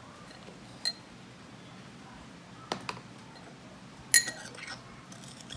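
Metal spoon clinking against a ceramic bowl as sugar is stirred in it: a few separate ringing clinks, the loudest about four seconds in, followed by lighter taps.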